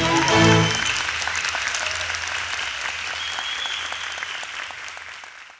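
Audience applauding, fading out gradually near the end; the background music stops about a second in.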